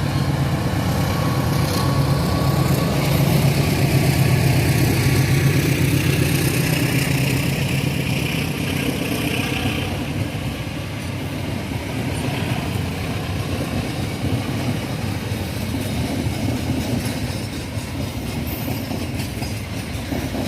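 CC 206 diesel locomotive running with a steady low engine rumble and rail noise. It is loudest a few seconds in and eases off after about ten seconds, with a hiss over the rumble in the first half.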